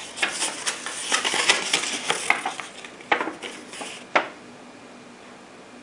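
A stiff paper instruction sheet being unfolded by hand: crisp crackling and rustling that stops after about four seconds.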